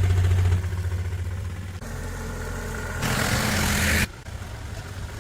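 Machinery running with a steady low hum, switching abruptly about two seconds in, with a louder hissing, noisy stretch from about three to four seconds in.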